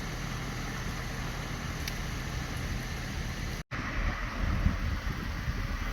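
Steady vehicle and wind noise. There is a brief cut to silence a little past halfway, and after it the low rumble gets heavier and gustier, like wind on the microphone.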